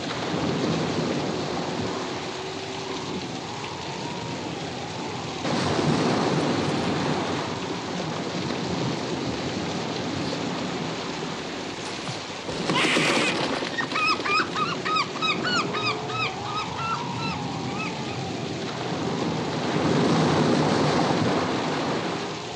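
Film storm sound effects: heavy rain and crashing surf, with a slowly wavering howl and swells in loudness. About halfway through a loud sudden crash comes, then a quick run of short high-pitched notes.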